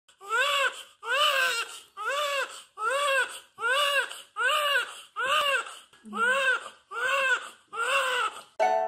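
Newborn baby crying in a steady rhythm, about ten wails roughly one a second, each rising and then falling in pitch.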